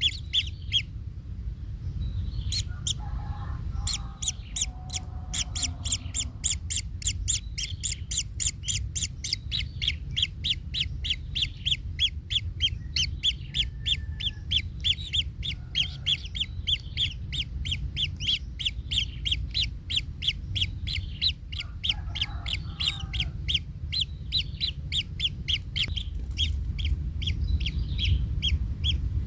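Kingfisher nestlings calling in the nest: a fast, even string of short, high chirps, about five a second, over a steady low rumble.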